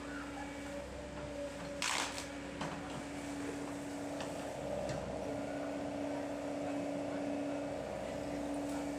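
Excavator running with a steady droning hum, with a brief hiss about two seconds in.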